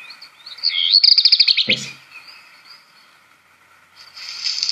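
Recorded song of a black redstart played back: a short high phrase opening with whistled notes and breaking into a fast, scratchy crackle, like paper being crumpled. After a pause, the next phrase begins with a steady high whistle near the end.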